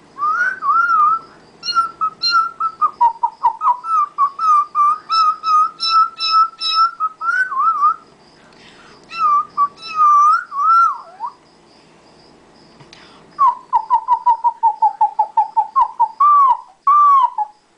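A person imitating a cockatiel with the mouth: whistled chirps and warbling notes in short bursts, then a quick run of repeated chirps falling slightly in pitch.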